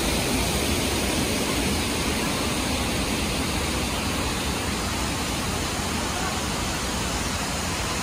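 Waterfall and the rocky stream below it rushing steadily: an even noise of falling and running water that eases a little after about two seconds.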